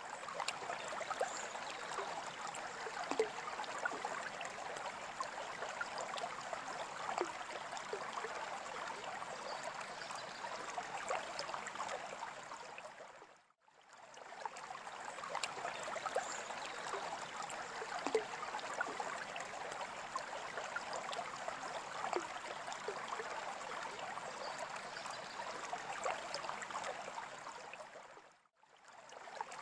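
Aquarium water trickling and splashing steadily with many small crackles. It fades out and back in briefly about halfway through and again near the end.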